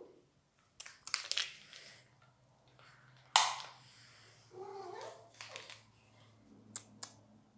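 A house cat meows once about halfway through, among clicks and rustling from handling things in the kitchen. The loudest sound is a single sharp clack a little over three seconds in, and two short clicks come near the end.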